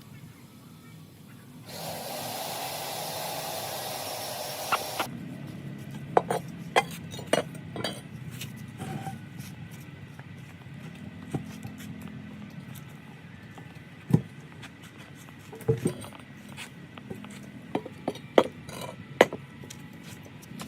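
Woodworking sounds: a few seconds of wood being rubbed or rasped, then scattered knocks and clicks of wood and tools being handled on a workbench.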